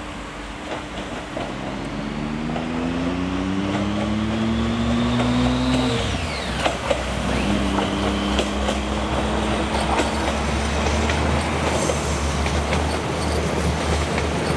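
Diesel regional multiple-unit train pulling away: its engine note climbs in pitch as it accelerates, drops suddenly about six seconds in as the transmission shifts, then settles steady over the rumble of the train rolling past on the track.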